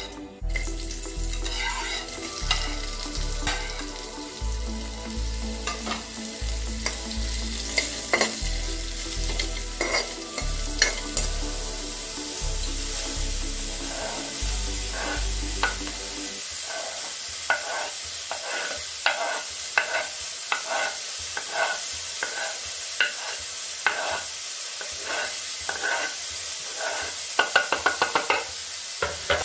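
Mushrooms, baby corn and broccoli sizzling in hot oil in a non-stick kadai while a wooden spatula stirs them. In the second half the spatula knocks against the pan about once a second, with a quick run of knocks near the end.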